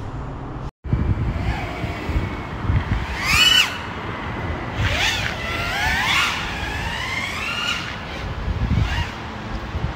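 FPV racing quadcopter's motors whining, their pitch sweeping sharply up and down with throttle punches, over a low rumble of wind and airflow. The sound cuts out completely for a moment under a second in.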